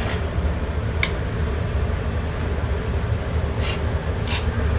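Steady low rumble with a few short light clicks, about four in all, as of tongs tapping on the grill grate.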